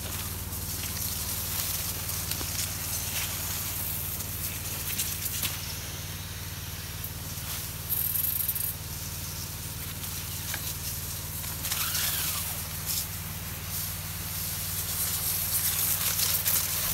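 Steady hum of an engine-driven orchard sprayer pump, with the hiss of spray from the hose nozzle. A brief louder hiss comes about eight seconds in.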